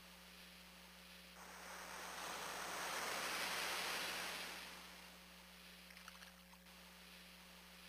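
Fisher-Price Ocean Wonders Aquarium Soother playing its ocean-wave sound: a soft hiss that swells up and fades away like a breaking wave, with the next wave beginning near the end. A low steady hum runs underneath.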